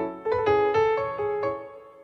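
Background keyboard music: a melody of struck notes, each fading, over a low bass line.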